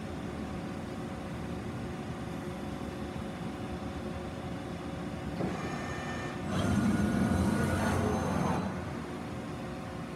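Amada COMA-567 CNC turret punch press standing powered, a steady machine hum with a few held tones. About five seconds in a brief whine sets in, then a louder rushing hiss for about two seconds before the plain hum returns.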